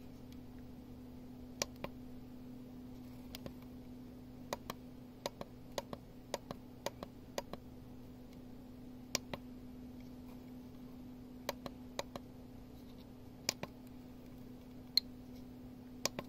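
Buttons on a GQ GMC-500 Geiger counter being pressed to step through its menus. Most presses give a pair of small clicks (press and release), about a dozen in all at irregular intervals, over a steady low hum.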